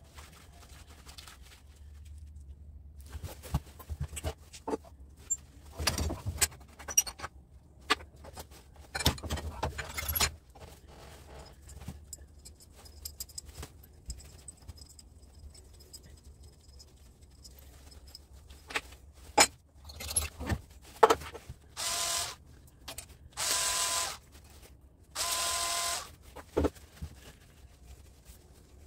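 Scattered clicks, knocks and metal clinks of hand tools and copper wire being worked in a bench vise, with three noisy bursts of about a second each near the end.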